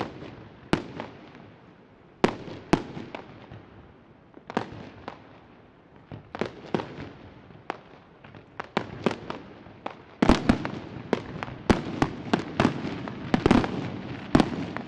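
Aerial fireworks shells bursting with sharp bangs, spaced out at first. About ten seconds in they turn into a louder, rapid run of bangs.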